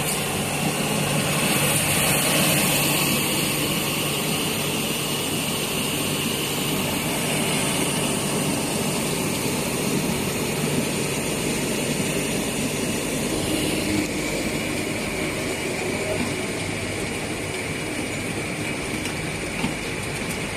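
Rubber co-extrusion and microwave curing production line machinery running: a steady mechanical hum with a hiss over it, its tone shifting slightly about two-thirds of the way through.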